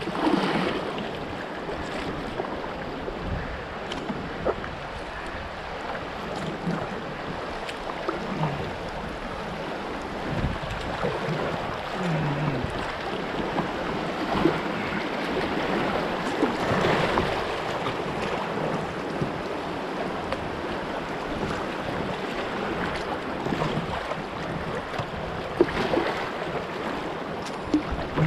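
River water rushing steadily around a plastic folding kayak running small rapids, with occasional short splashes from paddle strokes.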